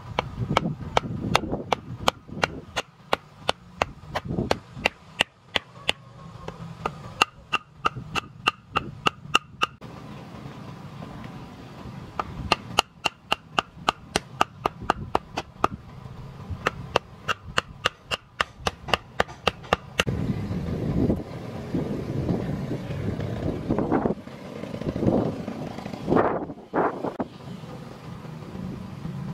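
Work on bamboo poles: runs of sharp, regular knocks, about three to four a second, some with a short ringing tone, like a tool striking bamboo. About twenty seconds in the knocking stops, giving way to rustling handling noise and a few scattered knocks.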